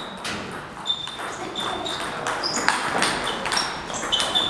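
Table tennis balls striking tables and paddles: a string of irregular sharp knocks, some with a short high ping, as from rallies on nearby tables in a table tennis hall.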